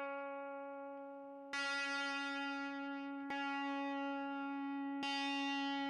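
A single held musical note that never fades, its tone changing abruptly three times, each change brighter and buzzier than the last, as if it were pushed through more and more effects or distortion.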